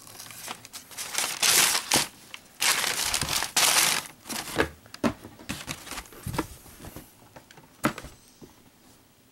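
Shoebox tissue paper rustling and crinkling as it is handled, loudest in two long bursts in the first four seconds. Then come a few light taps and knocks as the cardboard box is handled.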